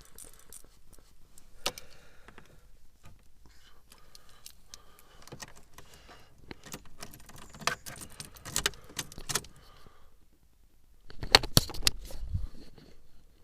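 Keys jangling, with scattered small clicks and rattles and a cluster of louder clicks about two seconds before the end.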